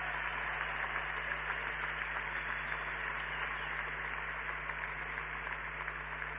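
Large audience applauding, a steady clatter of many hands that slowly dies down.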